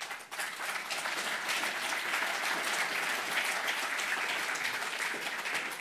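An audience clapping: a steady spell of applause that eases off near the end.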